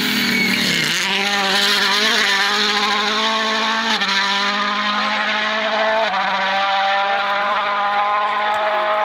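Toyota Yaris WRC rally car's turbocharged four-cylinder engine at full throttle, accelerating away hard. The engine note drops at each upshift: about a second in, around four seconds and around six seconds.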